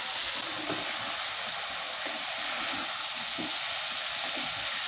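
Oil sizzling steadily under potato, pointed gourd and chickpea pieces frying with spice powders in a nonstick kadai, with a wooden spatula stirring and scraping through them as the spices are fried down with the vegetables.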